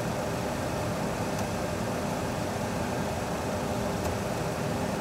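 Steady cockpit noise of a Boeing 737 Classic full flight simulator climbing at climb thrust: an even rush of simulated engine and airflow noise with a low hum beneath it.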